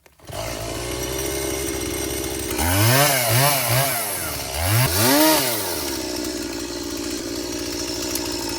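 Gas chainsaw running, revved up and back down about four times in quick succession, then running steadily before cutting off suddenly.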